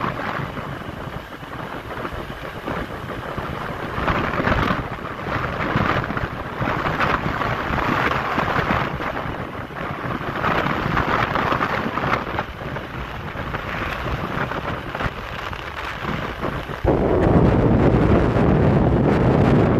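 Wind rushing and buffeting the microphone on a moving motorcycle, swelling and easing every second or two. It turns suddenly louder and deeper for the last few seconds.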